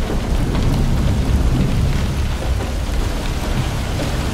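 Storm noise of wind and rain: a steady, heavy low rumble under a fainter hiss of rain.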